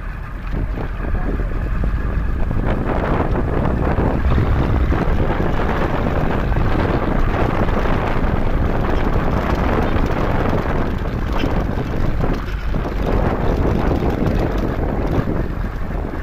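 Wind rushing over the microphone of a moving vehicle, a steady, loud rumble with engine and road noise underneath.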